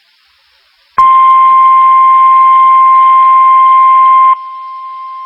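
NOAA Weather Radio's warning alarm tone, a single steady high tone that signals a weather warning is about to be read. It starts suddenly about a second in over faint radio hiss, drops sharply in level about three seconds later, and keeps sounding.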